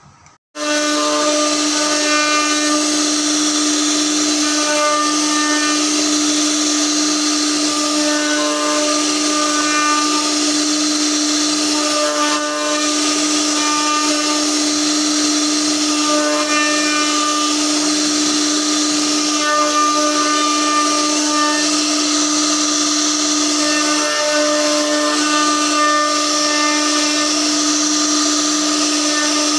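CNC router spindle carving a solid-wood door panel: a steady whine from the spindle with the hiss of the bit cutting wood. Higher tones come and go as the bit moves through the pattern, and the sound starts suddenly about half a second in.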